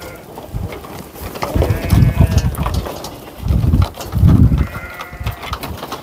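Sheep bleating twice while a flock's hooves knock and clatter on a slatted wooden platform, with heavy thuds as they step down.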